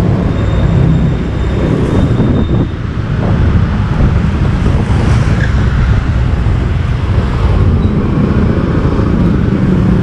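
Steady roadside traffic noise: a constant low rumble of passing vehicles.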